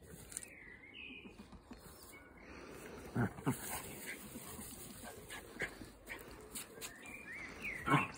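A small terrier making a few short vocal sounds while it plays with a ferret: two about three seconds in and a louder one near the end, over soft rustling.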